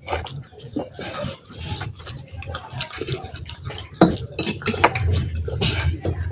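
Close-up chewing and wet mouth sounds of people eating chicken momos and noodles, with a sharp clink of a metal fork against a glass bowl about four seconds in.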